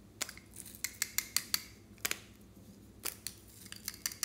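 Sharp plastic clicks from opening and handling small plastic lipstick tubes: a quick run of clicks, a single click about halfway, then another run of clicks near the end.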